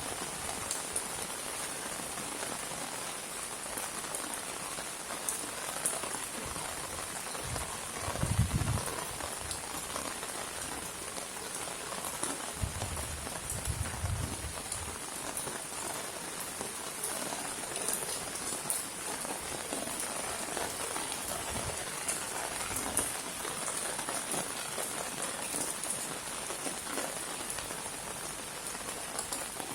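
Steady rain falling in a courtyard, an even hiss of drops with no let-up. A few dull low thumps stand out briefly about eight seconds in and again around thirteen seconds.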